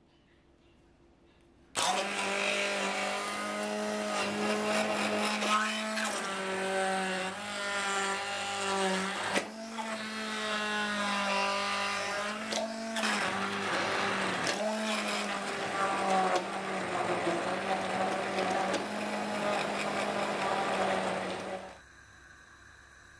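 Immersion blender motor running in a pot of fruit and syrup, puréeing peach slices and grapes; it switches on about two seconds in, runs steadily with its pitch dipping briefly several times, and cuts off abruptly near the end.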